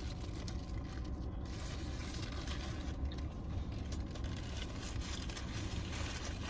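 Two people chewing big mouthfuls of bacon cheeseburger, with faint small crunches and rustles of the paper wrappers.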